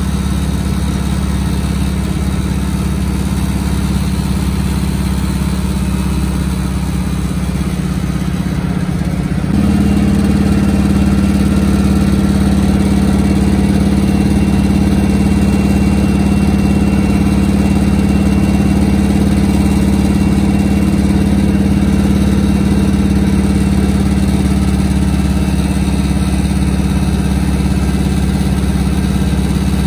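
The Norseman's Pratt & Whitney R-1340 nine-cylinder radial engine drones steadily in flight, heard from inside the cockpit. About a third of the way in the sound suddenly steps up a little in loudness and then holds steady.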